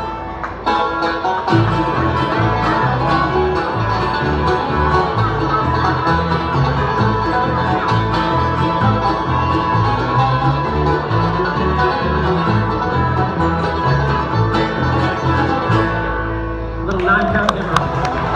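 Bluegrass music with banjo and guitar playing over a steady, regular bass line.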